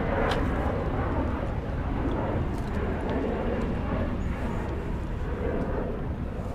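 Steady low outdoor rumble with no clear pitch, with a few faint clicks.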